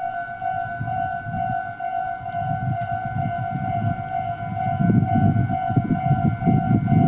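Japanese railway level-crossing alarm from a Kyosan-made electronic sounder, ringing a rapid, even, repeating tone. A low rumbling noise underneath grows louder about five seconds in.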